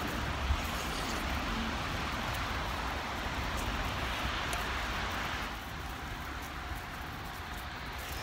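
Traffic noise from a passing car, a steady tyre hiss over a low rumble that drops away about five and a half seconds in.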